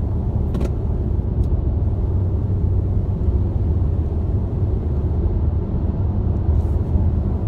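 Steady low rumble of road and engine noise inside a moving car's cabin, with a faint brief click about half a second in.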